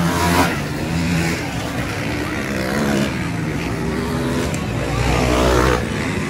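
Motocross dirt bike engines racing around a dirt track, revving up and down as the riders accelerate and shift, several bikes running at once.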